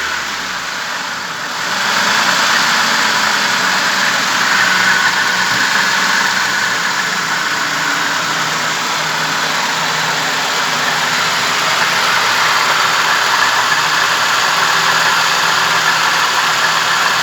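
ZMZ-406 four-cylinder petrol engine idling steadily and evenly.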